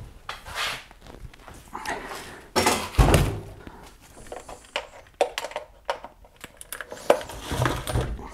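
A heavy lead-acid golf cart battery, lifted out of the cart's battery compartment, is set down with a dull thud about three seconds in. Lighter knocks and clinks of cables and hardware follow, with a second, smaller thump near the end.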